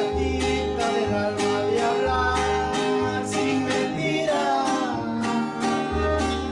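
Background music with plucked string instruments, a steady beat and a bass line.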